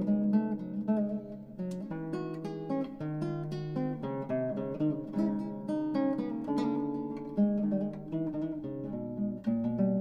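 Background music played on acoustic guitar: a continuous run of plucked notes and chords.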